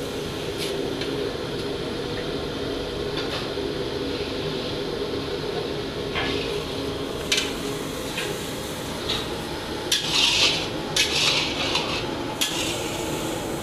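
Metal cookware clattering and scraping in short bursts, most of them about ten to twelve seconds in, over a steady low hum.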